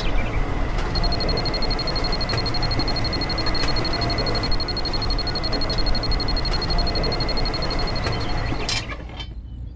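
Petrol-pump filling sound for a toy tractor being fuelled: a steady rushing noise with a fast, high electronic beeping like a fuel-meter counter, starting about a second in and cutting off shortly before the end.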